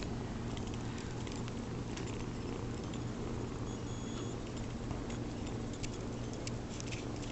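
Faint scattered ticks and light rustling as a kitten clambers over clothing and noses at the camera, over a steady low hum.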